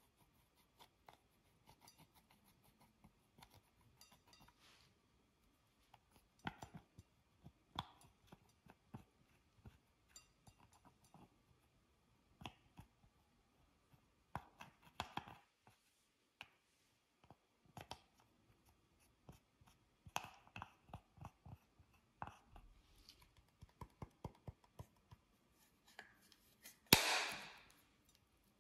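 Pink plastic stick scraping and picking pressed eyeshadow powder out of a plastic palette: faint, irregular small clicks and scratches, with one longer, louder scrape near the end.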